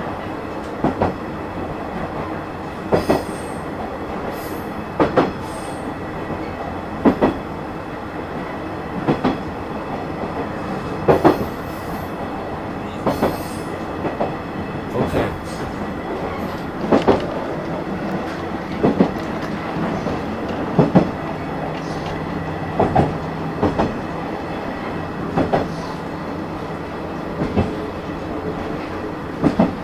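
Ride-on garden-railway train, a small locomotive pulling passenger wagons along narrow-gauge track, running with a steady hum. Its wheels click over the rail joints in pairs, about every two seconds.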